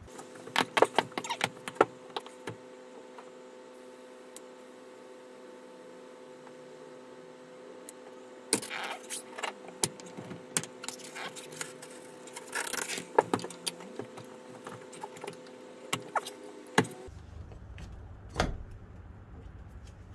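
Metal tyre levers clinking and scraping against a motorcycle wheel rim and its rim protectors as a tight tyre bead is prised off. The clatter comes in two spells, a short one at the start and a longer one from about halfway, over a faint steady hum.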